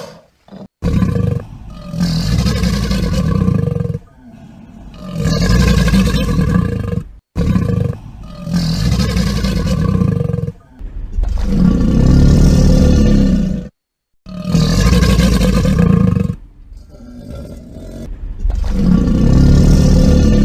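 Crocodile roar sound effect: deep roars repeated about six times, each lasting a second or three, with short breaks between.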